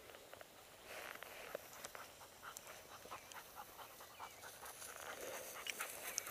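A working bird dog panting fast, about four quick breaths a second.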